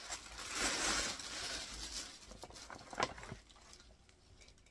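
Tissue paper rustling and crinkling as it is pulled out of a gift bag, loudest for the first two seconds, then a couple of sharp taps about three seconds in.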